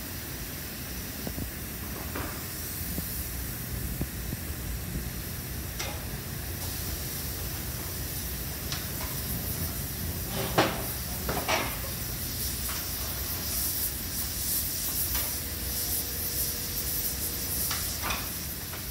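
Steady hiss and low rumble of gas-fired kiln burners, with scattered metal clanks and knocks, the loudest pair about ten and a half seconds in.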